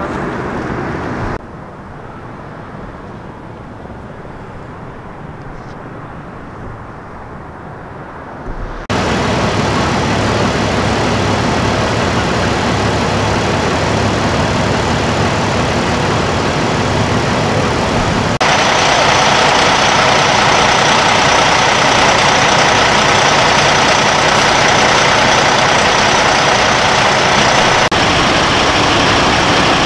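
Engines of a line of tow trucks idling and running, a steady heavy engine noise whose level changes abruptly several times.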